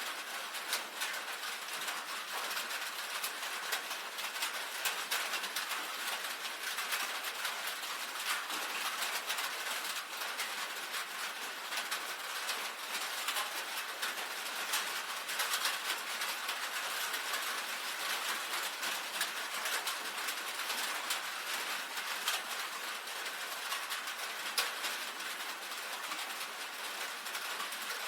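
Rain falling steadily on a tin roof: a dense, even patter of drops striking the metal, with many small sharp ticks from individual drops.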